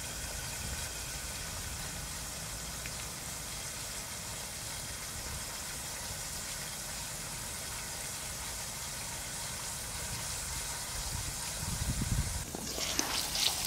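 Fish frying in a covered pan over a portable gas burner: a steady sizzling hiss. Near the end it grows louder and crackles.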